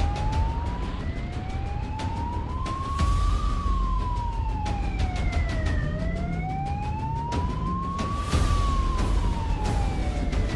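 Police siren wailing in a slow rise and fall, about five seconds per cycle, over the low rumble of a motorcycle riding at speed.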